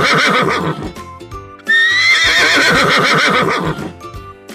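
Horse whinnying twice: the tail of one neigh, then a second full neigh about two seconds long that starts with a rising pitch and quavers as it goes. Soft background music plays under it.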